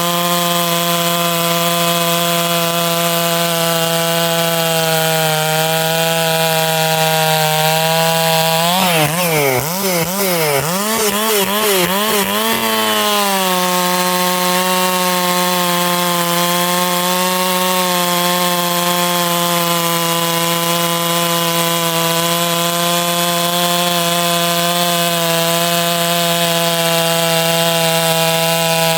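Stihl 461 two-stroke chainsaw with a Stihl Hexa chisel chain cutting through a log at full throttle, holding a steady engine note. About nine seconds in, the pitch swings up and down several times for a few seconds before settling back into a steady cut.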